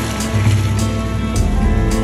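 Background music with sustained notes, a moving bass line and a steady beat.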